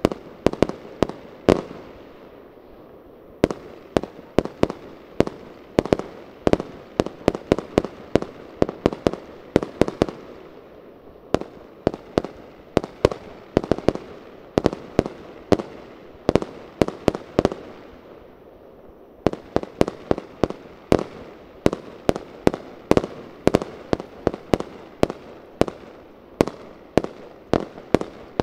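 Fireworks bursting in a rapid barrage: sharp bangs, several a second and irregular, with echo filling the gaps. The barrage pauses briefly twice before starting up again.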